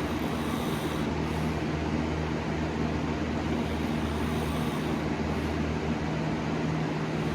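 A steady machine hum over an even hiss, unchanging throughout.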